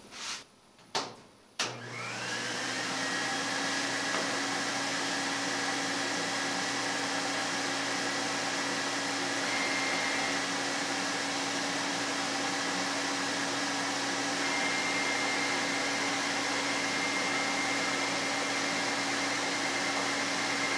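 A few sharp clicks, then about two seconds in the CNC router's vacuum dust collection switches on: a motor whine rises quickly, then settles into a steady rushing run with a hum beneath. It keeps running evenly as the gantry carries the brush-skirted dust shoe across the table.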